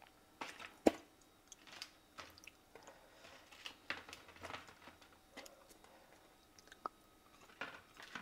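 A person chewing food close to the microphone, quiet, with scattered short clicks at irregular intervals.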